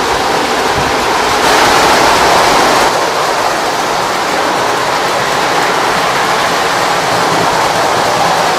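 Lionel postwar O-gauge toy trains running on three-rail tinplate track: a steady whirring rumble of wheels and motors on the metal rails, louder for a moment about a second and a half in.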